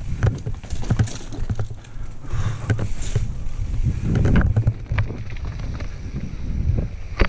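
Mountain bike riding fast down a rocky trail: tyres bumping over rock slabs and the bike rattling with frequent irregular knocks, over a steady low rumble of wind on the microphone.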